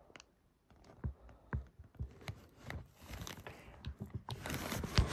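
Close handling noise from fingers touching the camera: a run of small clicks and taps with rubbing and scraping, growing denser and louder toward the end.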